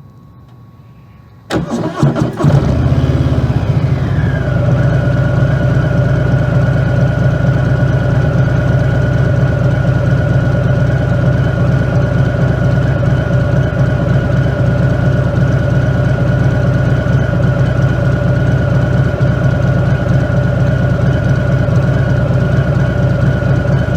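Harley-Davidson Fat Bob 114's Milwaukee-Eight 114 V-twin, breathing through a Rinehart slip-on exhaust with the dB killer removed, starts about a second and a half in. Its revs drop over the next two seconds and it settles into a steady idle.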